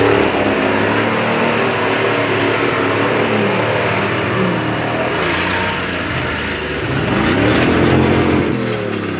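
Demolition derby pickup trucks' engines running and revving as they drive around the mud arena; about seven seconds in one engine revs up hard, then its pitch drops away near the end.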